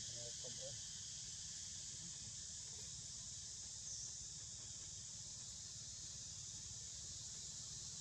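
Steady high-pitched drone of an insect chorus in tropical forest, over a low steady rumble.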